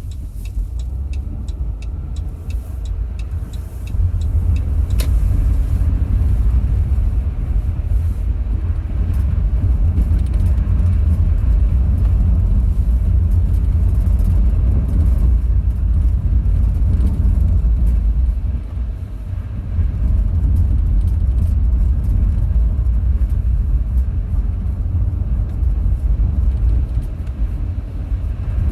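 Car driving, with a steady low rumble of road and engine noise that gets louder about four seconds in and eases briefly about two-thirds of the way through. A few faint clicks sound in the first seconds.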